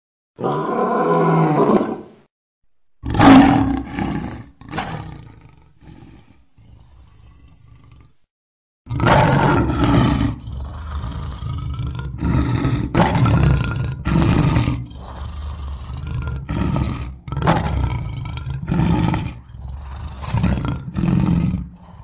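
Lion roaring: first a short pitched call, then a louder roar that starts suddenly and fades. After a brief break comes a long run of shorter roars, about one a second.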